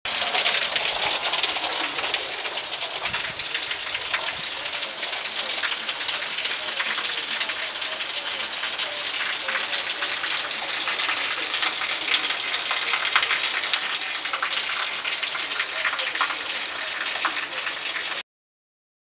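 Heavy downpour: a dense, steady hiss of rain hitting concrete and gravel, with many small splashes, that cuts off suddenly near the end.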